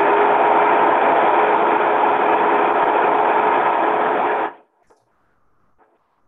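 Countertop blender running at full speed, whirring a thick oat-and-banana waffle batter, a steady noise with a constant motor whine; it cuts off about four and a half seconds in.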